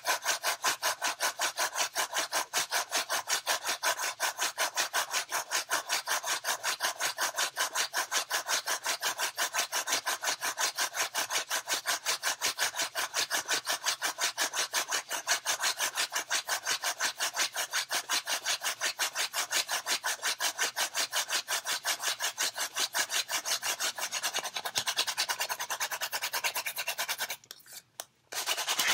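Goldenrod hand-drill spindle spun back and forth between the palms in a western red cedar hearth board: a rapid, even rasping rub at about four strokes a second. It breaks off briefly near the end, then starts again. The friction is heating the wood to smoking, building char dust toward an ember.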